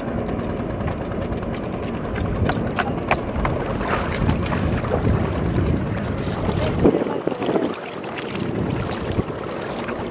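Water splashing and dripping as a bamboo-framed mesh fishing net is worked and lifted in shallow river water, with scattered small knocks over a steady low rumble.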